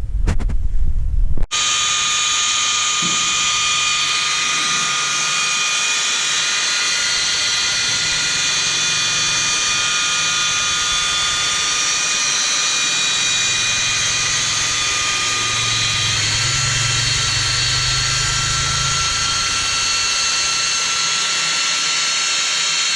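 A high-speed power tool running steadily with a high-pitched whine, starting suddenly about a second and a half in; its pitch steps up slightly about sixteen seconds in.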